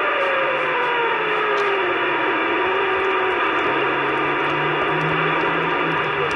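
CB radio receiver hiss on an open channel between transmissions, with a thin whistle sliding down in pitch over the first few seconds and a faint low hum later.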